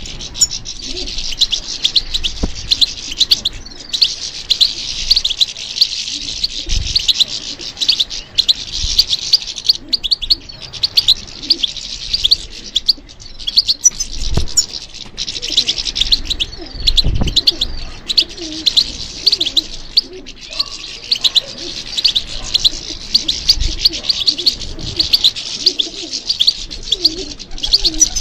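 European goldfinch singing: a fast, tinkling stream of high twitters and trills that runs on with only brief pauses.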